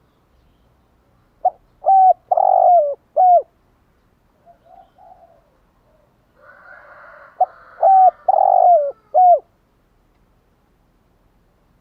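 Spotted dove (cu gáy) cooing: two phrases about five seconds apart, each a short note, then a note, then a longer middle note and a final note that drops in pitch. Softer faint calls come between the phrases.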